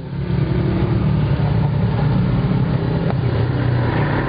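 A motor vehicle engine running close by, a steady low drone over a wash of street noise.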